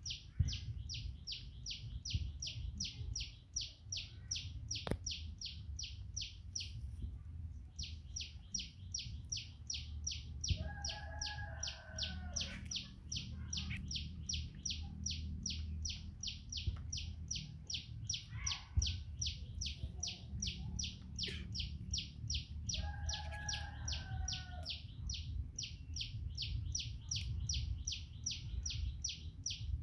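Rapid, even chirping, about four or five high chirps a second, breaking off briefly twice. A lower, several-pitched call, falling slightly, sounds twice, about twelve seconds apart.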